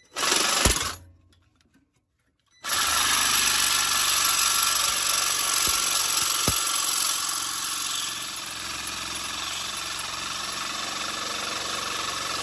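Reciprocating saw cutting through rusted-solid exhaust flange bolts: a short burst in the first second, a pause, then steady cutting from about two and a half seconds in.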